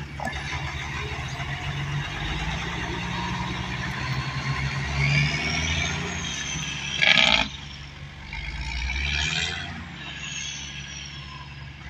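Diesel engine of a tandem-axle dump truck pulling away and driving off, with a high whine that rises and falls with the revs. A loud short burst of noise comes about seven seconds in.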